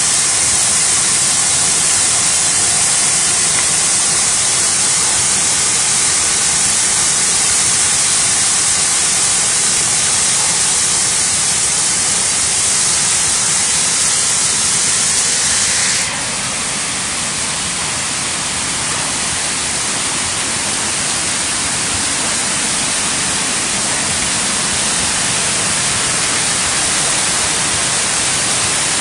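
Creek in flood rushing over a waterfall: a loud, steady rush of white water. The sound drops a little in loudness and brightness about sixteen seconds in.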